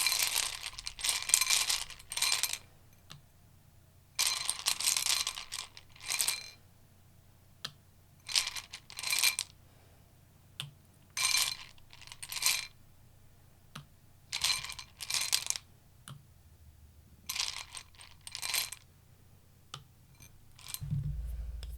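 A deck of tarot cards being shuffled in about a dozen short bursts, often in pairs with pauses between, each with a faint metallic jingle.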